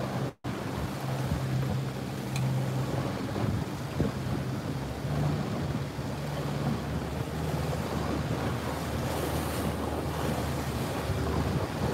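A boat's engine running steadily with a low hum as the boat turns, under wind buffeting the microphone and the wash of water. The sound cuts out for a split second about half a second in.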